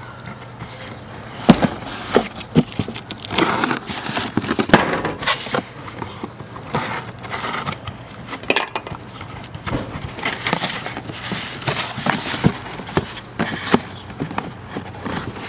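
Cardboard shipping box being opened and handled by hand: a run of irregular scrapes, crinkles and knocks as the flaps are pulled open and the box inside is handled.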